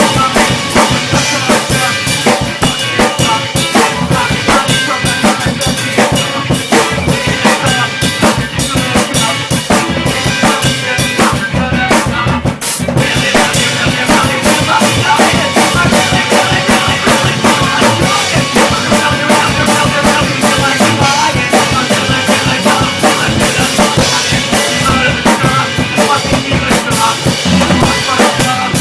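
Band demo recording: loud, fast drum kit playing with kick drum, snare and rimshots over dense sustained instruments, with a brief break about twelve seconds in.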